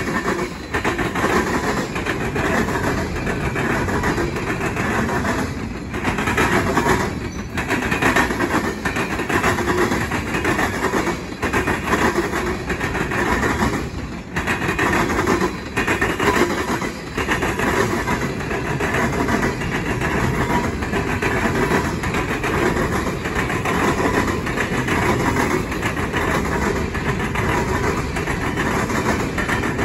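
Freight train cars (tank cars, gondolas and hoppers) rolling past, a continuous rumble with the wheels clattering repeatedly over the track switches.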